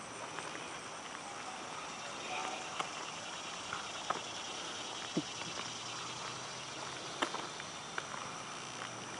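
Outdoor ambience of a steady high insect trill, with a few soft, irregular taps of footsteps on an asphalt path.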